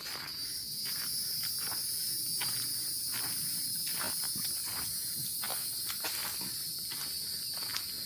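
A steady, high-pitched insect buzz that comes in abruptly at the start and holds, with a walker's footsteps on the forest trail falling a little more than once every half second beneath it.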